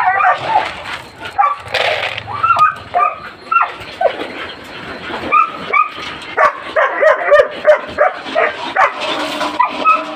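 Several huskies barking, yipping and whining over one another in quick, overlapping calls, excited at feeding time.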